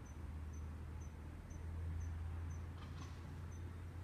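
Insect chirping, short high pips repeating evenly about twice a second, over a low steady rumble.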